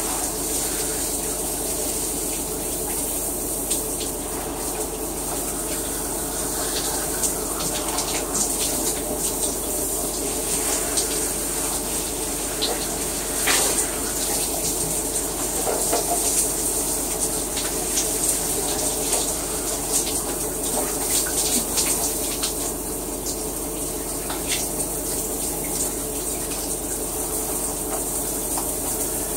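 Shower running: a steady rush of water with irregular spatters and drips.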